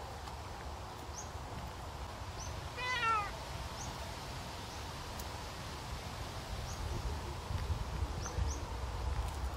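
Savannah cat meowing once, a short call about three seconds in.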